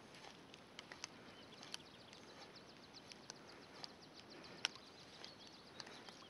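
Near silence with faint clicking from a spinning rod's reel, a run of small quick ticks as the line is wound in to work a surface popper, and a few louder single clicks from the tackle.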